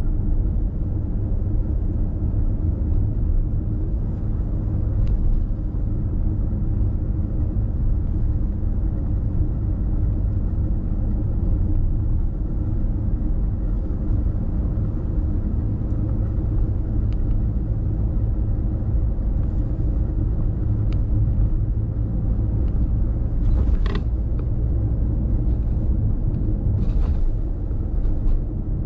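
Steady low rumble of a car driving on the road, with a couple of short knocks near the end.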